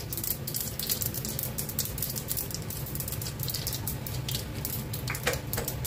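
Mustard seeds spluttering in hot oil: a steady, dense crackle of small pops.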